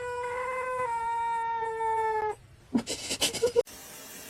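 A cat giving one long, drawn-out yowl at a steady pitch that steps down slightly about a second in and stops a little past halfway, followed by a few short soft clicks.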